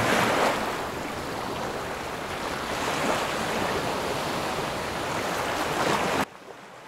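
Sea surf breaking and washing up a sandy beach: a steady rush that swells every few seconds, cutting off suddenly about six seconds in.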